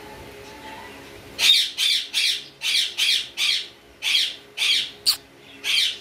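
Budgerigar giving a run of about ten short, harsh squawks, roughly two a second, starting about one and a half seconds in.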